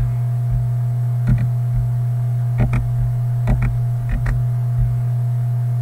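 Steady low electrical mains hum, with a handful of computer mouse clicks on top, some single and some in quick pairs, spaced about a second apart.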